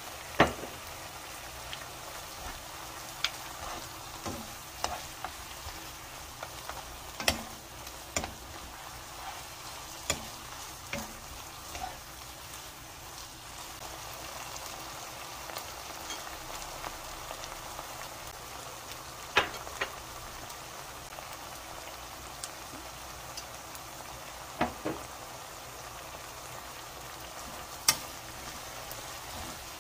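Pork and onion strips sizzling in a nonstick wok as they are stir-fried, with a steady hiss. A metal spoon and a wooden spatula knock sharply against the pan now and then, about eight times.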